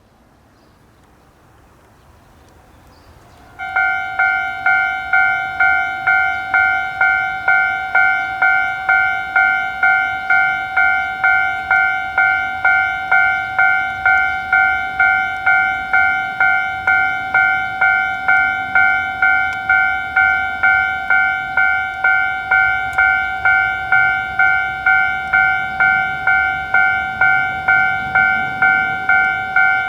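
Japanese level-crossing warning bell starting about three and a half seconds in, then ringing a single repeated 'kan-kan' tone about 1.7 times a second, steady and loud.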